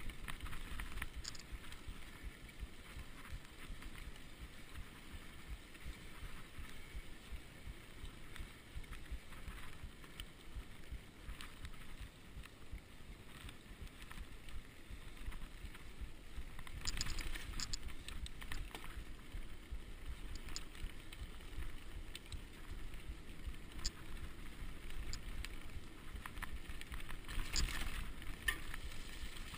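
Mountain bike riding fast down a dirt singletrack: steady wind rush over the on-bike camera microphone and rolling tyre noise, with clusters of clattering rattles as the bike hits bumps a little past halfway and again near the end.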